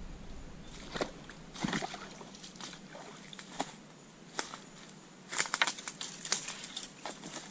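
Irregular sloshing, snaps and crackles of someone moving through shallow swamp water and vegetation, with a cluster of sharp crackles about two thirds of the way in.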